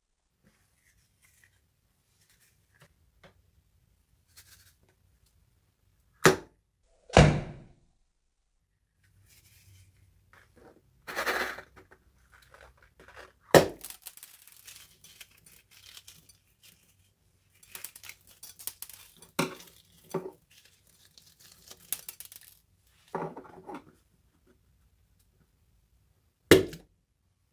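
Slime being handled and mixed by hand, with its plastic containers: a few sharp thuds and slaps and stretches of crackly, crinkling squishing.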